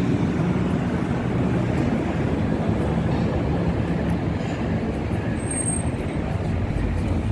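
Steady urban din of vehicle and street noise, with a brief high-pitched squeak about five and a half seconds in.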